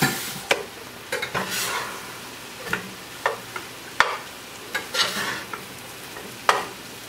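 Metal spatula scraping and knocking against a stainless steel skillet as fried rice is stirred and tossed, in irregular strokes about once a second, over a low sizzle of frying.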